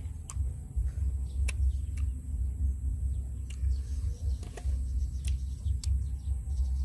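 Scattered light clicks and scrapes of a metal spoon scooping salt and chili onto young mango slices on a steel tray, over a steady low rumble.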